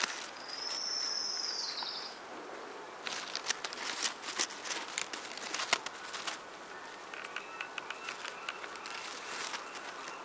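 A bird's single long, high whistle, then a few seconds of crackling rustle as leaves are brushed aside close to the microphone, then faint high chirping with light ticks.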